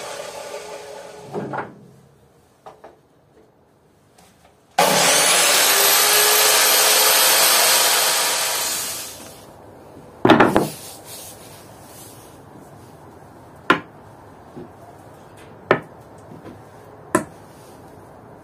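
A power tool on wood: its motor starts suddenly with a rising whine that levels off, runs for about four seconds and winds down. Several sharp knocks follow.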